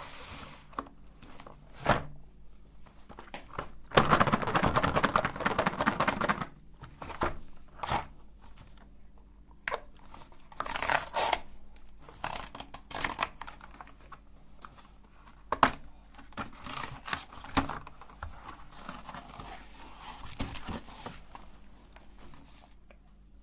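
Candy wrappers being torn open and crinkled by hand: irregular tearing and rustling with scattered clicks, the longest and loudest tear about four seconds in and another about eleven seconds in.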